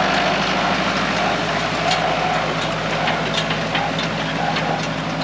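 International Harvester 574 tractor engine running steadily, with a few light clicks and rattles over the hum.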